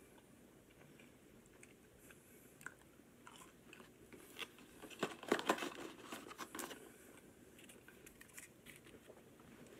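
Eating crunchy fried chicken fries alongside the crackle of their cardboard carton and paper wrapper being handled. A few faint crunches come first, then a dense burst of crackling from about four to seven seconds in, loudest about halfway through.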